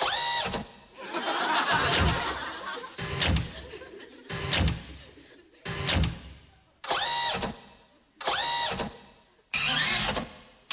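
Electronic robot-servo sound effects: short whirring sweeps that rise and fall in pitch, about seven of them, each starting and stopping abruptly to match a jerky robot movement. A burst of audience laughter follows the first sweep.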